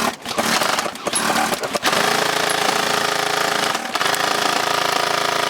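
Airsoft gun firing on full auto: a few short bursts, then one long, unbroken burst from about two seconds in.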